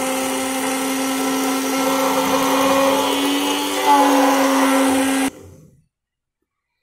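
Hitech bullet blender's motor running steadily, its milling blade dry-grinding roasted gram in the small jar. The motor gets a little louder about four seconds in, then cuts off suddenly about a second later and winds down to silence.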